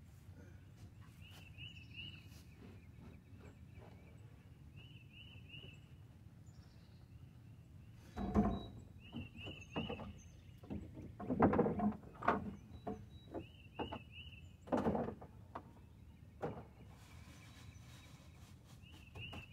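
Knocks and bumps from someone moving about and handling things inside a wooden chicken coop, loudest about halfway through. A bird chirps in short runs of three quick notes every few seconds.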